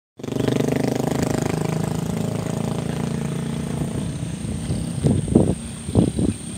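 A small engine running steadily at an even pitch, fading after about four seconds, followed by a few short loud sounds near the end.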